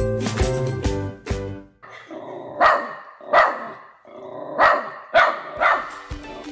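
Miniature schnauzer puppy barking five short, sharp barks, after background music stops about two seconds in.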